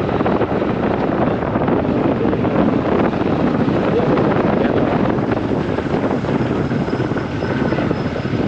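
Motorcycle engine running while riding at low road speed, mixed with steady wind noise on the handlebar-mounted microphone.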